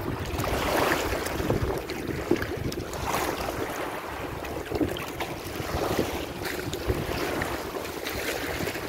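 Wind buffeting the phone's microphone, with small waves lapping at the water's edge in gentle swells every second or two.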